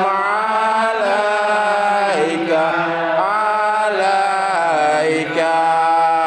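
Men chanting Islamic devotional praise of the Prophet (shalawat) in Arabic, drawing out long held notes that bend and waver in ornamented runs.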